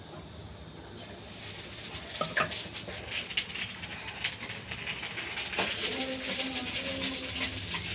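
Metal spoon scraping and clinking against a steel pot and a steel bowl as thick rice pudding (payesh) is ladled out, many small clicks over a steady hiss.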